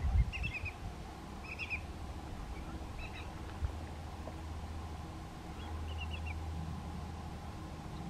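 Shorebirds calling: four short runs of a few quick, high whistled notes, spaced a second or more apart. Under them runs a low rumble, with a thump at the start.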